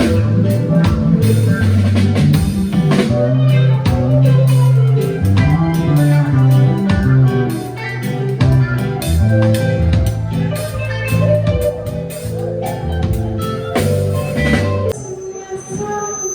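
Live band playing an instrumental: a moving bass line, guitar and drum kit. The playing cuts off abruptly near the end.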